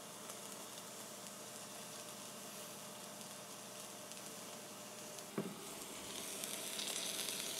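Wagyu flap steak searing in a hot pan on an induction burner, sizzling steadily. There is a single knock a little past five seconds in, and after it the sizzle grows louder.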